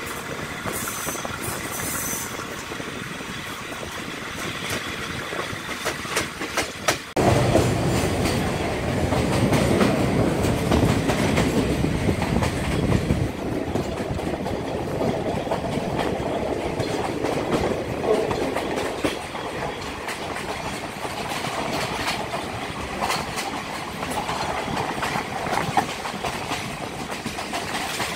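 Passenger train running along the track, heard from an open carriage window: steady rumble and rushing air with wheels clacking over rail joints. The sound becomes suddenly louder and fuller about seven seconds in.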